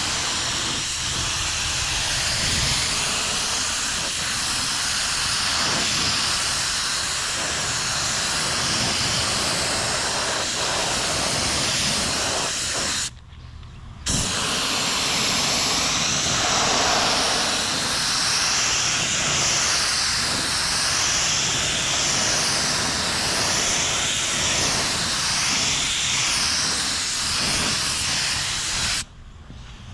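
Gravity-feed spray gun hissing with compressed air as it lays on a coat of primer. The hiss drops out for about a second halfway through and again just before the end, and wavers in pitch in the second half.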